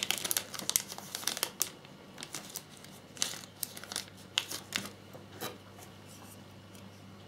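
Small clear plastic zip-lock parts bag crinkling as it is handled and opened: a busy run of rustles over the first second and a half, then scattered single crinkles until about five and a half seconds in.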